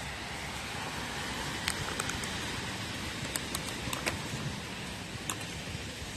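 Plastic-gloved hands mixing shredded fruit in a glass bowl: a scattered handful of sharp clicks and crinkles, starting a little under two seconds in, over a steady background hiss.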